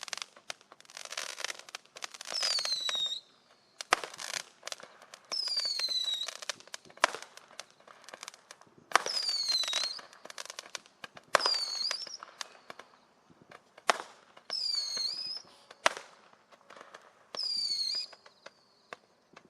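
Winda 'Stun Gun' roman candle firing shot after shot, one every two to three seconds. The shots give about seven falling whistles, each about a second long, with sharp bangs and crackling between them.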